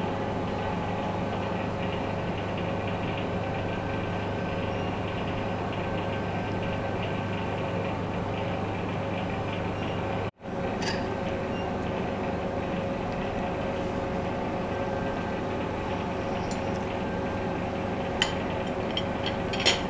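Steady mechanical hum of kitchen ventilation, such as an exhaust hood fan, cutting out for an instant about ten seconds in. A few small clicks come near the end.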